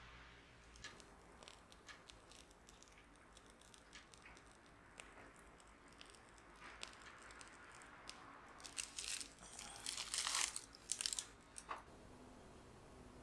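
Piping bag crinkling and rustling as it is squeezed to pipe mont blanc cream, with scattered small clicks. The crinkling grows louder and comes in bursts in the last few seconds.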